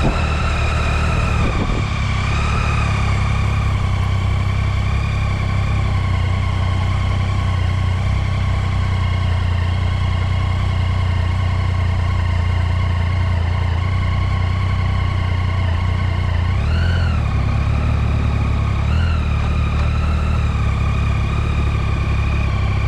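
2017 Triumph Tiger XCx's three-cylinder engine running steadily at low road speed, with two short rises in pitch from brief throttle openings near the end.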